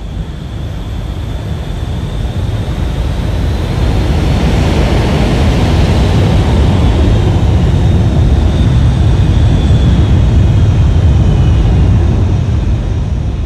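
An aircraft flying past: a loud rushing noise that builds over the first few seconds, holds, then fades near the end, with a high whine that drops slightly in pitch as it goes by.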